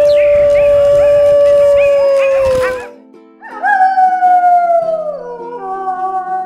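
Wolf howling: one long, steady howl that dips slightly in pitch as it ends about 3 seconds in, then a second howl that slides down in pitch. Soft background music plays underneath.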